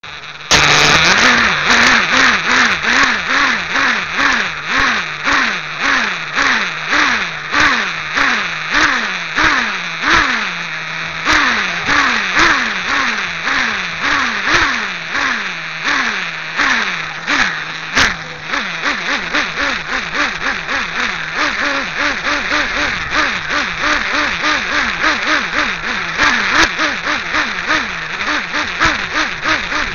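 Nitro glow engine of a Team Associated RC8B 1/8-scale buggy, heard right beside the engine, revved in quick repeated throttle blips about twice a second and dropping back to idle between them. In the second half the blips come faster and sit higher in pitch.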